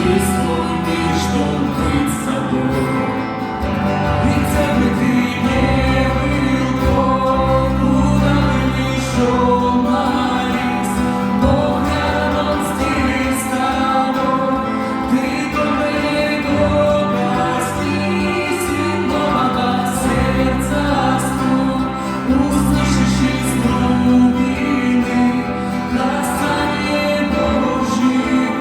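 Live band music with a steady beat, held bass notes and singing.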